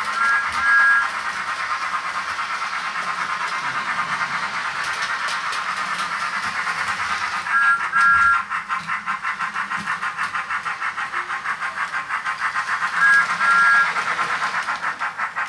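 Sound unit of a Bachmann Thomas the Tank Engine model locomotive playing rhythmic steam chuffing. Three times a whistle gives a short toot followed by a longer one.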